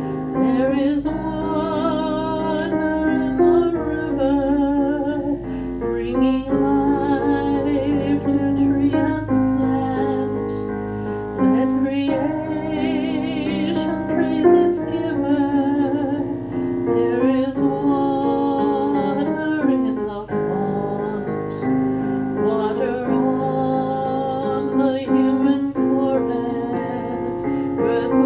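A hymn verse with piano accompaniment: held chords under a slow melody carried with vibrato.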